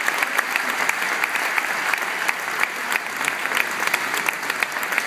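Crowd of spectators applauding steadily: many hands clapping at once, welcoming a tennis player announced onto the court.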